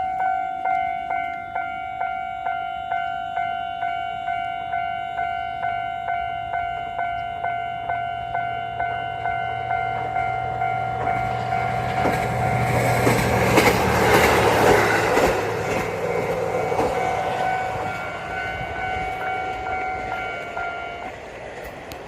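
Japanese railway level-crossing warning bell ringing in a steady pulsing beat, about one and a half strikes a second. About halfway through, a train passes over the crossing with a rising and falling rush of wheel and rail noise. The bell stops near the end.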